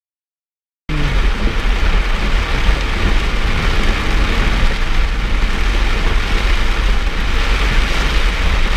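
A car driving through heavy rain on a flooded road: steady rain and tyre-spray hiss over a strong low road rumble. It cuts in abruptly about a second in.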